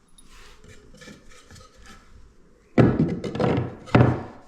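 Two loud wooden thunks about a second apart, after some quieter rustling: a loose timber cupboard panel being lifted out and knocked against the frame.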